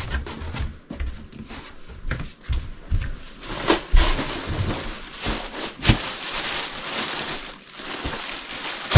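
Packaging being handled: irregular rustling and crinkling with scattered knocks and clicks, busiest in the middle.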